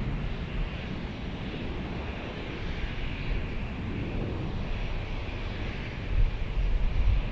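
Twin-engine regional jet's turbofans at takeoff thrust as it climbs away, a steady jet noise with a low rumble and an upper hiss. Wind buffets the microphone near the end.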